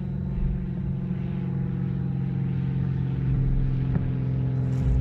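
Steady drone of an engine running at an even pitch throughout, with a light click about four seconds in.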